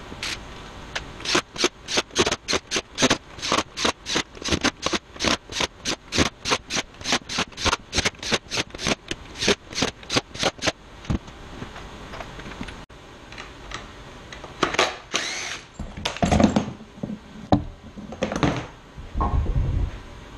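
Cordless drill-driver working in short rapid bursts, about four a second, for some ten seconds, then stopping. Clunks and knocks of tools and wood being handled come near the end.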